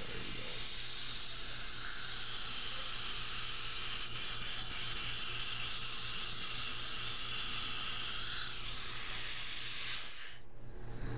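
Dental high-volume evacuation (HVE) suction tip running with a steady airy hiss, which cuts off suddenly about ten seconds in.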